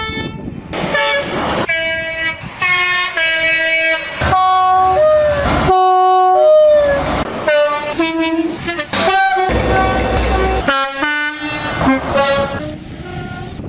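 Train air horns sounding a rapid series of short blasts and chords of different pitches, the sound switching abruptly about every second. Several notes sag in pitch as they die away, with the low rumble of the train under a couple of them.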